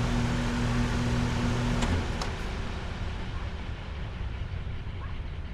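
Carrier heat pump outdoor unit shutting off: the compressor's steady hum stops with a click about two seconds in, and the whoosh of air that is left slowly fades.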